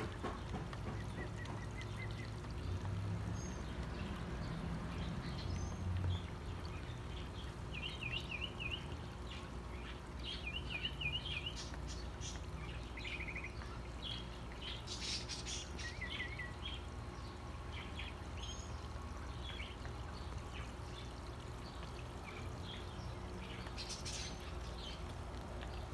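Water trickling steadily from a small garden pond's spillway, with birds chirping now and then in short warbling trills.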